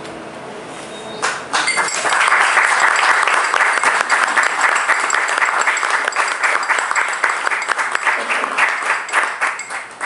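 A grand piano's final chord rings and fades, then a small audience breaks into applause about a second in. The clapping thins out near the end.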